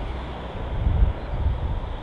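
Wind buffeting the microphone in uneven low gusts, over a steady rushing noise.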